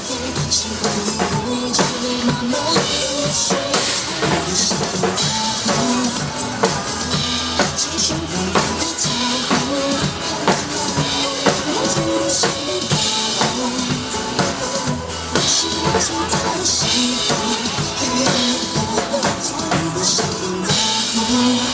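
Drum kit played in a steady groove of bass drum, snare and cymbals along with a recorded pop song backing track.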